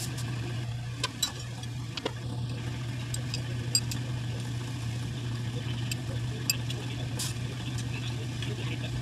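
Steady low hum of workshop machinery, with a handful of sharp metallic clicks and taps from hand tools on a lathe-style chuck as a screw compressor rotor is trued up in it.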